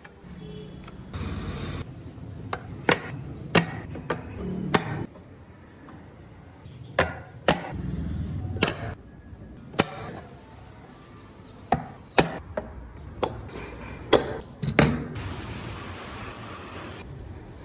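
Carving tools knocking and chopping into a block of wood: about fifteen sharp, irregular knocks, some in quick pairs, a second or two apart.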